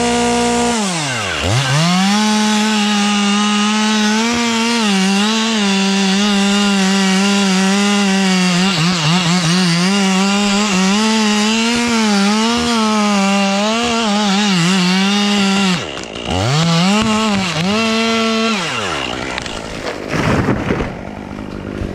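Stihl chainsaw cutting through a large tulip poplar trunk at full throttle, its pitch wavering slightly under load. The throttle drops sharply about a second in and again about sixteen seconds in, then comes a few short revs before the saw falls back to a low idle near the end.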